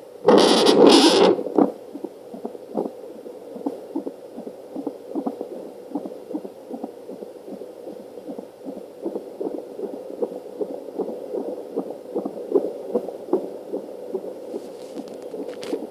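Angel Sounds fetal doppler picking up a 30-week fetal heartbeat: a fast, regular pulse of about two to three beats a second over a steady hum. Near the start there is a loud rushing, crackling burst lasting about a second, and a shorter one comes right at the end.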